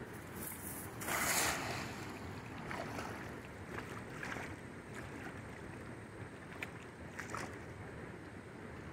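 A weighted cast net hits the water with a splash about a second in, over the steady rush of a shallow river current. A few smaller splashes and ticks follow.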